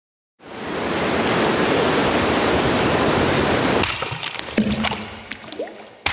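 Raindrop sound effect playing back with added reverb: a dense, steady hiss of rain starts about half a second in, cuts off suddenly a little before four seconds, and gives way to scattered water drips and plinks.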